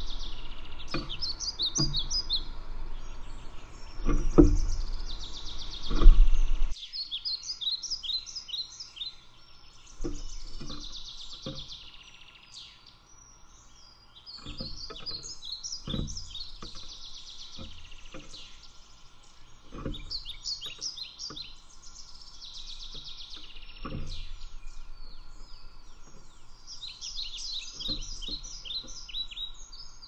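Small songbirds chirping in short trilled phrases every few seconds, over scattered light taps from a scrub-jay pecking seed on a tabletop. A low rumble with a couple of thumps stops abruptly about seven seconds in.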